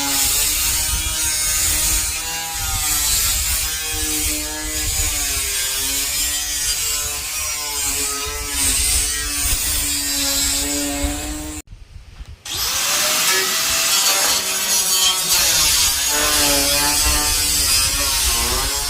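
Handheld power tool working on a car body panel, its pitch wavering up and down with the load over a rough rubbing noise. The sound drops out for about a second midway, then resumes.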